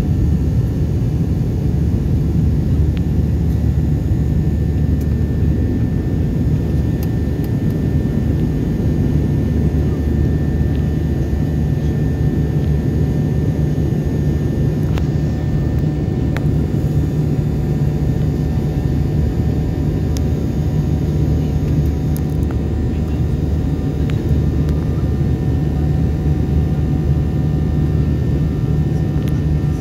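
Steady, loud cabin noise inside a Ryanair Boeing 737 climbing after takeoff: an even, deep rumble of the turbofan engines and rushing air, with a few faint steady tones above it.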